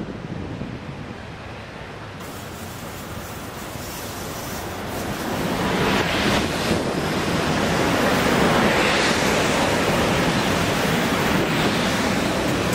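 Class 18E electric locomotives approaching and running past at low speed, a rushing noise that swells about five seconds in and then holds loud and steady.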